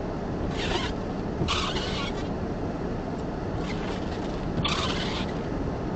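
Steady low rumble of a stopped vehicle idling, heard inside the car's cabin. Four short hissing swishes come over it in two pairs, each pair about a second apart.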